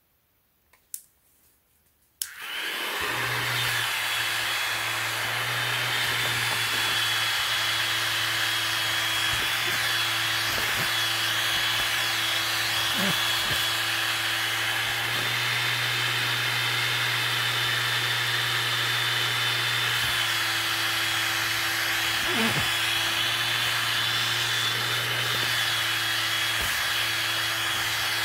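A couple of switch clicks, then the small 9-volt battery-powered fan in the base of a miniature Wacky Waving Inflatable Tube Guy starts about two seconds in and runs steadily, blowing up the fabric tube. It is a steady whir with a thin high whine on top.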